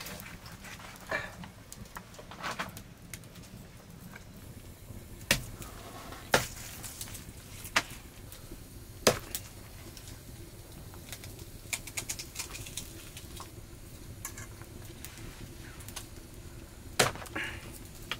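Sharp knocks at irregular gaps of one to a few seconds, with a few short bird calls in the background.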